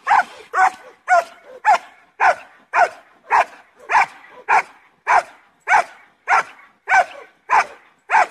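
Eighteen-month-old German shepherd barking steadily at the helper in protection training, about two sharp barks a second in an even rhythm.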